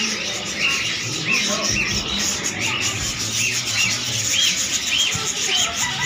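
A flock of caged budgerigars chattering, a dense mix of many short chirps repeated several times a second.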